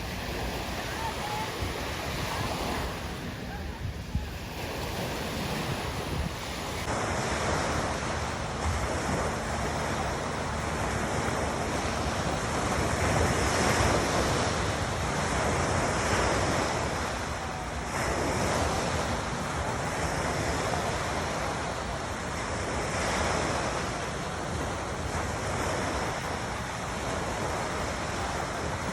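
Calm waves washing onto a shore: a steady wash that swells and ebbs every few seconds, growing fuller about seven seconds in.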